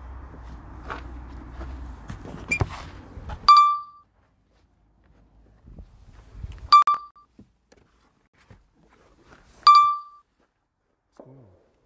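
Three short electronic alert beeps, about three seconds apart, each a clear high tone. They come as the drone's remote controller loses its link to the phone app. Before the first beep a steady background hiss runs, and it cuts off suddenly at that beep.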